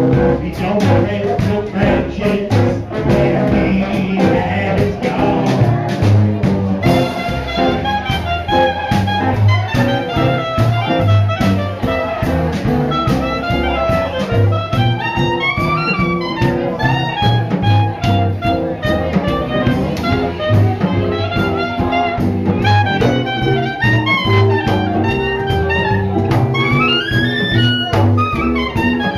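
Live swing jazz band playing an up-tempo tune, with melody lines over steady, evenly spaced bass notes.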